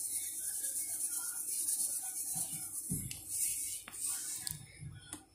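Dry yeast granules pouring from a packet into warm milk in a plastic jug: a soft, grainy hiss that stops about three and a half seconds in. A dull thump and a few light knocks follow as the packet is put aside.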